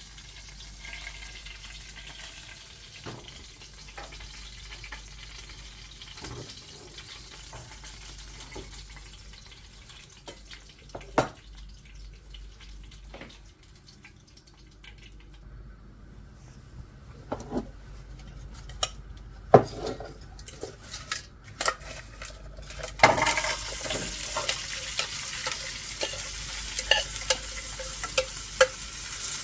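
Chicken frying in a pan, sizzling, with utensils clicking and knocking against the pan as it is stirred and turned. About three-quarters of the way through the sizzle suddenly gets much louder.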